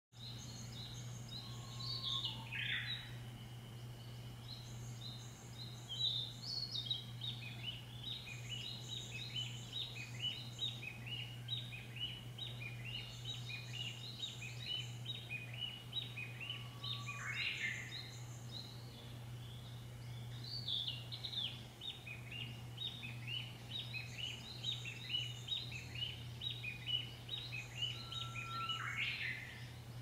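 Small songbirds singing in woodland, a dense run of quick repeated chirps, with a louder call that sweeps down in pitch three times: near the start, about halfway and near the end. A steady low hum runs underneath.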